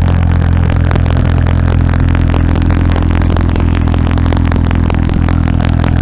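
Car engine running at a steady speed, a low even drone with faint ticking over it.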